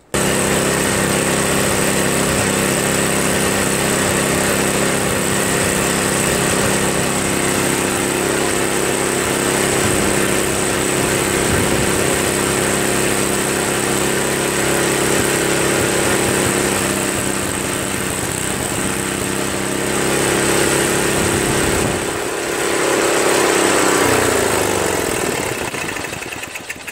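Tecumseh engine of a Craftsman 522 two-stage snowblower running steadily while its carburetor mixture screw is adjusted so it will run without the choke. Near the end the engine speed dips, picks up briefly, then winds down.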